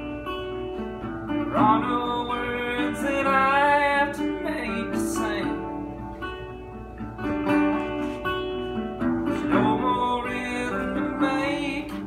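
National resonator guitar with a metal body, played fingerstyle: picked notes and chords ringing on, with heavier strummed attacks about a second and a half in and again near the end.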